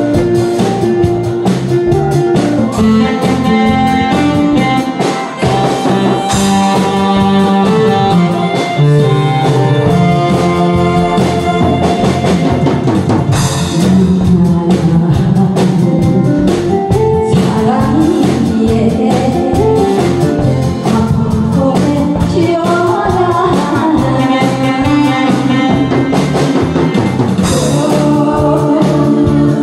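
A woman singing a Korean song into a handheld microphone over a karaoke backing track with drums and guitar, played loud through a PA; the track opens with an instrumental intro before her voice comes in.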